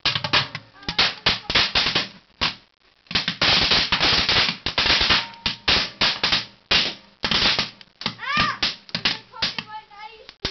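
Firecrackers crackling and popping in rapid succession inside a microwave oven, thickening into a dense continuous crackle about three to five seconds in, with a brief whistling glide near the end.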